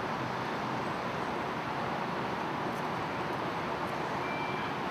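Steady outdoor ambient noise, an even hiss like distant city traffic, with a brief faint thin tone near the end.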